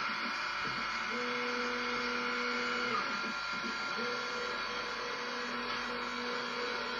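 Celestron CPC 1100 HD fork mount's drive motors slewing the telescope to a new target. The motors give a steady whine that starts about a second in, drops out for about a second around three seconds in, then resumes, over a steady electrical hiss.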